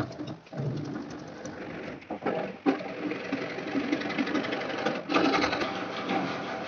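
A hand tool scraping and rasping on a PVC pipe fitting in fast, repeated strokes, with a few knocks in the first few seconds.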